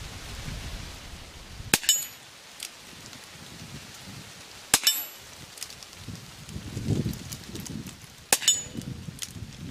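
Three shots from a Smith & Wesson K model .22 revolver with a 6-inch barrel, about three seconds apart, each a sharp crack with a short ringing tail.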